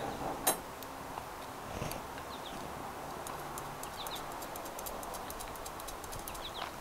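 Small metal nuts being threaded by hand onto the metal radial rods of a ham-radio ground-plane antenna. It is quiet, with one light metallic click about half a second in and faint ticking after it, and a few faint high chirps.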